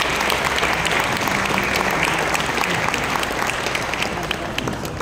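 An audience applauding, a dense patter of many hands clapping that begins to fade near the end.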